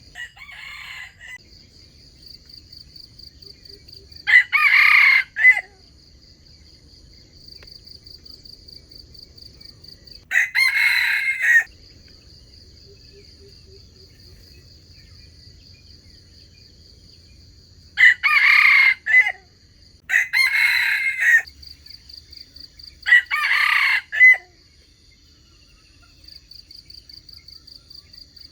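Wild junglefowl roosters crowing: short crows of about a second each, five loud ones and a fainter one at the start. A steady, pulsing high insect drone runs underneath.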